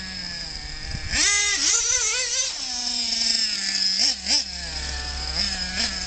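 Motor of a radio-controlled car revving up sharply about a second in, wavering, then running at a steady pitch with two quick throttle blips near the end.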